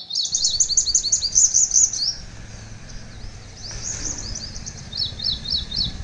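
Sunbirds calling in fast runs of high, sharp chirps: a string of about two seconds at the start, a shorter run near the middle, and a few quick falling notes near the end.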